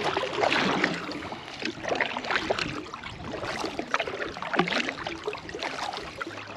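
Water splashing and dripping around a kayak as the paddle is worked, an irregular run of small splashes and light knocks.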